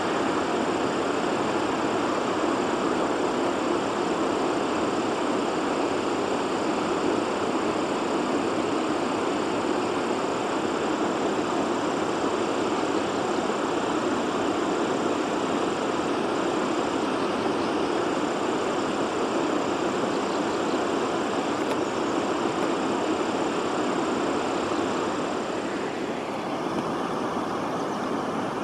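Water pouring down the stepped concrete spillway from a settling basin's sediment-flushing gate, a loud, steady rush. It drops slightly and softens a couple of seconds before the end.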